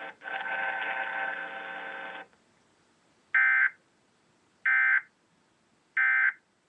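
Emergency Alert System end-of-message code: three short bursts of digital data tones, a little over a second apart, marking the end of the alert. Before them a steady buzzing hum cuts off about two seconds in.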